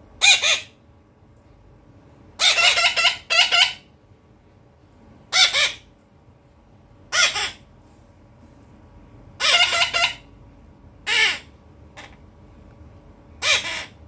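Pet parrot squawking: loud, harsh calls, each under a second, repeated every one to two seconds, with a quick run of three calls about two and a half seconds in and a pair near ten seconds.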